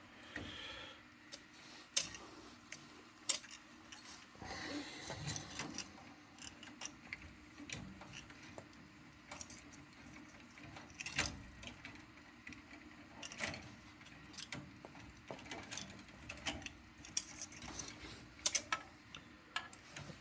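Scattered small clicks, taps and rattles of hands handling small metal parts and wiring, coming at uneven intervals.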